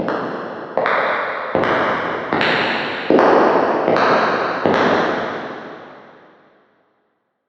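Footsteps with a long echo, about one step every 0.8 s, growing louder over about seven steps; after the last step the echo dies away.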